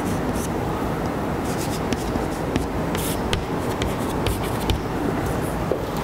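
Chalk writing on a blackboard: irregular short scratches and taps of the chalk stroke by stroke, over a steady low background noise.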